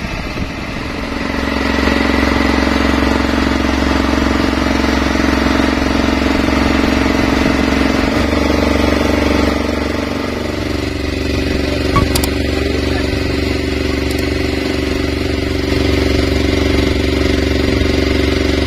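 Motorboat engine running steadily under way, easing off slightly about ten seconds in and then holding steady again. A single sharp click about twelve seconds in.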